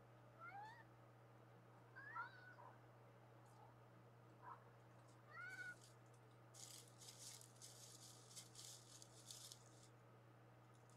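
Domestic cat meowing faintly: four short calls that each rise in pitch, spread over the first six seconds. They are followed by about three seconds of crackling rustle, with a steady low hum underneath.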